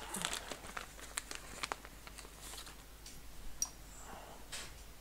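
Scattered light clicks and small handling noises from tools and parts being handled at a microsoldering bench. Most of the clicks come in the first two seconds, and a single sharper click falls about three and a half seconds in.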